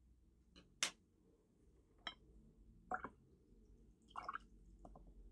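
A sharp click about a second in, then a few fainter taps and clicks: art tools such as a paintbrush and pencils being handled and set down on a desk.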